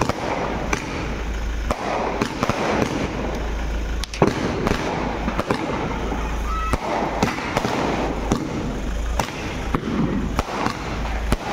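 Diwali fireworks and firecrackers going off: many sharp bangs and crackles in quick succession, the loudest bang about four seconds in.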